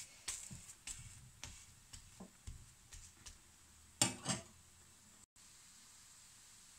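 Spatula tapping and scraping on a flat tawa while handling a cooking stuffed paratha: a string of light clicks, with two louder knocks about four seconds in.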